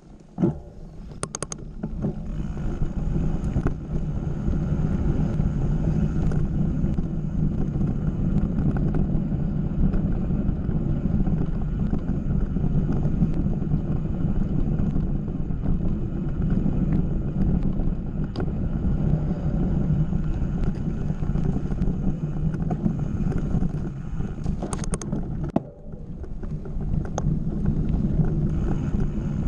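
Mountain bike rolling fast over a dirt and gravel trail: a steady, loud rumble of tyres and rattling bike, with wind buffeting the microphone. A sharp knock comes just after the start.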